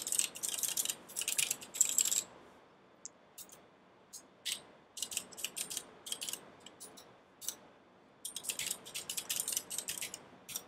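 Mechanical numpad with Aristotle switches being typed on: quick runs of key clacks, thinning to scattered single presses in the middle, then another fast run near the end.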